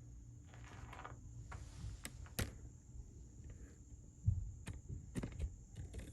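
Footsteps and scattered knocks as someone moves about a room, the loudest a low thump about four seconds in, over a steady low hum.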